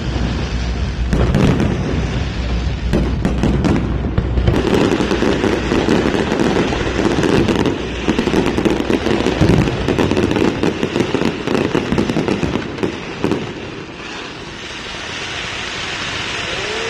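Fireworks bursting in quick succession: a dense run of bangs and crackles that thins out about two-thirds of the way through, leaving a steady background hiss.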